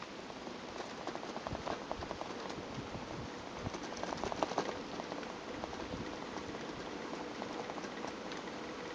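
Bicycle rolling over brick paving, heard from the handlebars: a steady rush full of small rattles and clicks from the handlebar bag and mount. The rattling is busiest about four seconds in.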